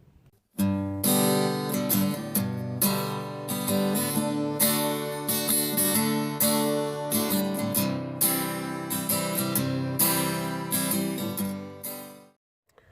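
Acoustic guitar strumming chords in a steady rhythm, starting about half a second in and stopping shortly before the end.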